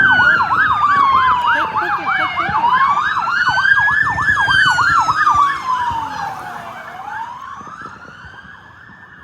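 Police car siren: a slow rising-and-falling wail with a fast yelp sounding over it for the first half. The yelp stops about halfway through, and the wail fades over the last few seconds.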